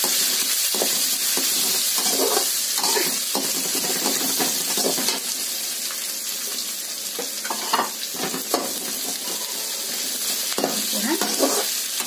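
Chopped onion sizzling in hot oil with cumin and mustard seeds in a kadhai, stirred now and then with a spatula that scrapes against the pan.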